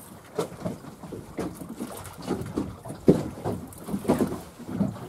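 Water slapping and knocking against the hull of a small boat on choppy water, in uneven short slaps with a sharper knock about three seconds in.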